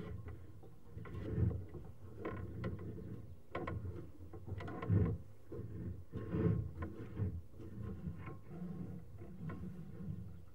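Sewer inspection camera being fed along a rusted, scaly sewer pipe: irregular knocks and scrapes from the camera and its push cable, loudest about a second and a half in and again around five and six and a half seconds, over a steady low hum.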